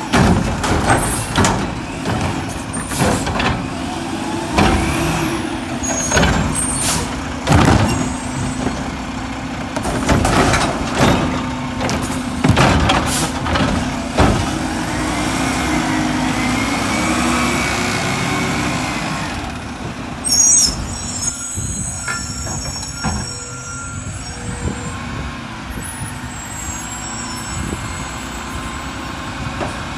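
Mack LR garbage truck working its McNeilus front loader and Curotto-Can cart arm: repeated clanks and knocks as trash carts are grabbed and shaken empty into the can, then a rising and falling hydraulic whine as the engine revs to lift the can over the cab. One loud bang comes about twenty seconds in, followed by a steadier engine run with some hiss of air.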